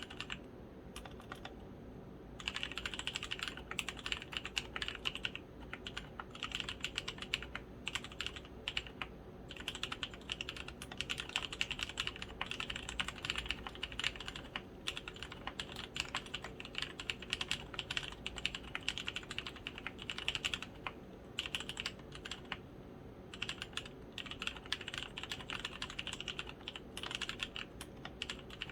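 Typing on a custom 60% mechanical keyboard with lubed Kailh Polia tactile switches, pudding keycaps, a copper plate and an acrylic case with foam dampening. It is fast, continuous keystroke clatter in bursts with brief pauses, after a few sparse keystrokes in the first two seconds.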